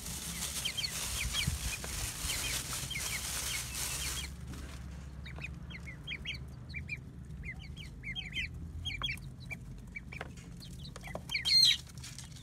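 A plastic bag rustling as cooked rice is shaken out of it into a plastic bowl, stopping about four seconds in. Chicks and ducklings peep in many short, high chirps throughout, with one louder call near the end.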